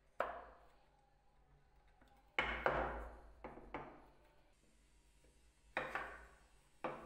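Several sharp knocks of wooden table-leg pieces against each other and the work surface as the broken leg and its foot are fitted together and pulled apart, each knock ringing out briefly, some in quick pairs.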